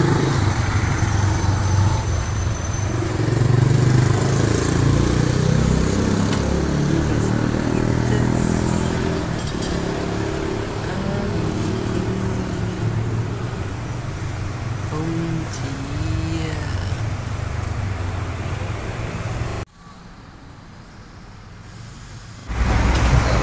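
Urban road traffic: vehicle engines running steadily. The noise drops sharply for about three seconds near the end, then returns.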